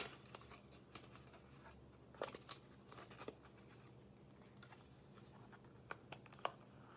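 Faint, scattered rustles and clicks of a small cardboard box and its paper insert being handled and opened, a few short scrapes spaced about a second apart.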